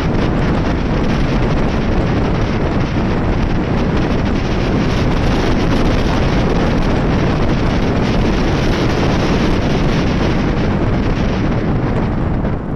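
Loud, steady wind noise buffeting the microphone of a camera on a moving motorcycle, covering the engine. It eases slightly near the end.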